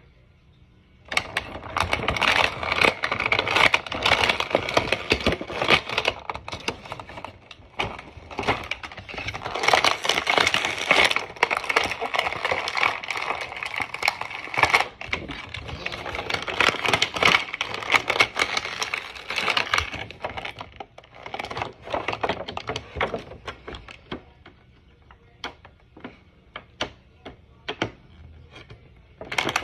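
Clear plastic bag crinkling and crackling as it is handled and pulled at to free a small toy figurine stuck inside. It starts about a second in, stays dense for most of the first twenty seconds, then thins to scattered crackles.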